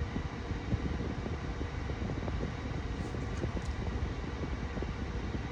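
Steady low background rumble with no speech, with a few faint clicks about three seconds in.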